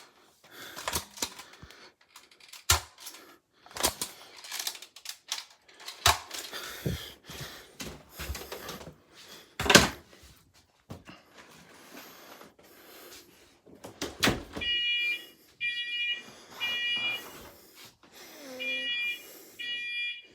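Scattered sharp clicks and knocks, then about fifteen seconds in a smoke detector goes off: shrill beeps about half a second long in groups of three with a short pause between the groups, the alarm sounding during a test.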